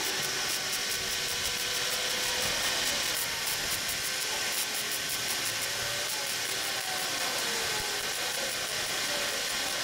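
Wire-feed welder arc crackling and sizzling steadily as spot welds fill a rust hole in sheet-steel body panel.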